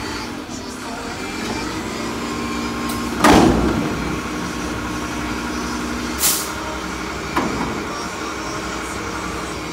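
Mack LEU front-loader garbage truck running with its diesel engine raised to drive the hydraulics as the forks lift a Curotto-Can up over the cab and tip it. A loud metallic clunk comes about a third of the way in, a short air hiss a few seconds later, then a lighter knock.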